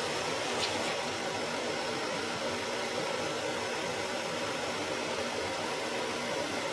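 Steady, even hiss of background air noise, like a fan or air handler running, with one faint click less than a second in.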